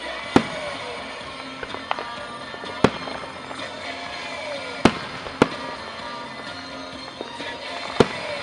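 Aerial fireworks shells bursting: five loud booms at uneven intervals, with a few fainter pops between them. Music from a radio plays underneath.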